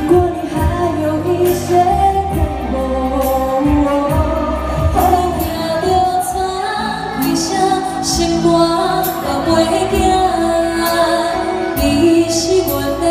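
Live Mandarin pop song: a woman singing over violin and electric keyboard with a steady beat.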